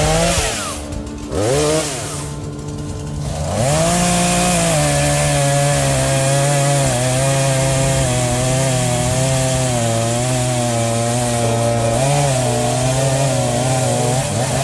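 Small chainsaw revved in three short blips, then held at full throttle from about four seconds in, its pitch wavering slightly as it cuts into a large tree.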